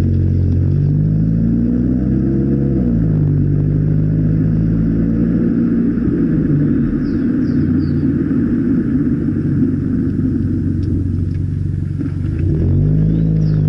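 Exhaust of a VW Golf Mk7's 1.4 TSI turbo four-cylinder, its rear muffler removed for a 3-inch GTI-style Y tailpipe, running at a steady deep idle with a couple of brief revs.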